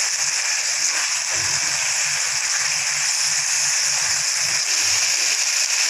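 Marinated chicken pieces sizzling steadily in their own released juices on a hot iron tawa, with a metal spatula stirring and scraping against the griddle now and then.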